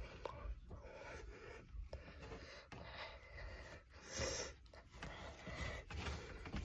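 Quiet breathing close to a phone microphone, with a few faint handling clicks and a louder breath about four seconds in.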